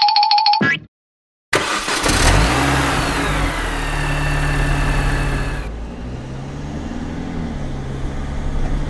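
A car engine sound effect. About a second and a half in, the engine starts up and revs under a loud hiss and a falling whine. After a few seconds the hiss stops and the engine keeps running, its pitch rising and falling. Just before the engine, a steady high tone cuts off.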